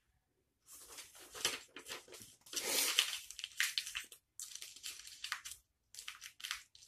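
Crinkling and rustling of food packaging in irregular bursts.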